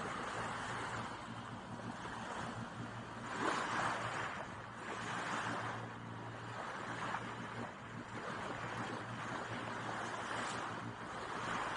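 Sea water rushing and splashing past a moving yacht's hull, swelling in surges every few seconds, over a steady low hum.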